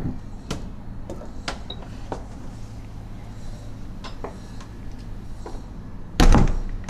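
Scattered light clicks and knocks, then a loud thump about six seconds in: a door being shut.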